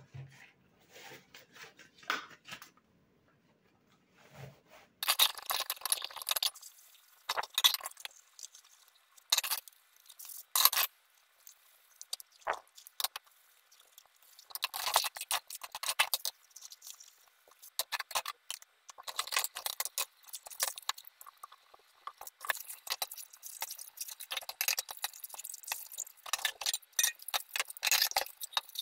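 Irregular close-up clicks, clinks and rustling of small objects being handled. The sounds are sparse for the first few seconds and come thick and fast after that.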